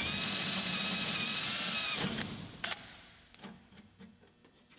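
Cordless drill bit spinning at a steady high whine as it drills out an aluminium rivet in the airframe, stopping about two seconds in. A couple of light clicks follow.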